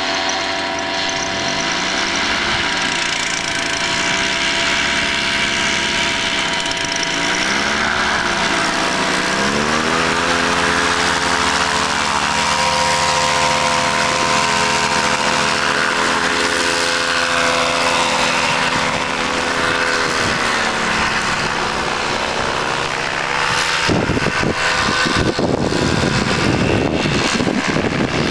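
Paramotor engine and propeller running hard for a take-off, rising in pitch in steps as the throttle is opened, holding steady, then dropping away about three-quarters through. A rough rumbling noise covers it over the last few seconds.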